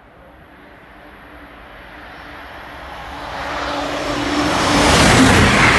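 Amtrak Avelia Liberty high-speed electric trainset approaching at speed, a rushing sound that builds steadily louder as it nears and is loudest and brightest near the end.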